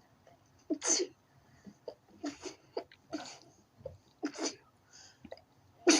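A sneezing fit: a run of short sneezes and sharp breaths, about one a second, the loudest about a second in and at the very end.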